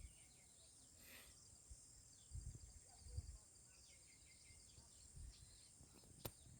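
Near silence: faint outdoor ambience with a steady high-pitched hum, a few faint bird chirps, soft low bumps, and one sharp click near the end.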